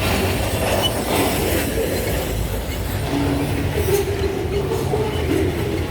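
Loaded grain freight train's cars rolling past: a steady rumble with wheels squealing in shifting tones and a few sharp clicks from the wheels on the rail.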